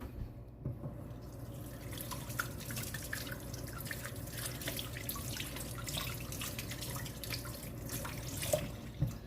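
Water running from a tap into a sink while hands are rinsed under it, with small splashes. It comes on about two seconds in and stops near the end.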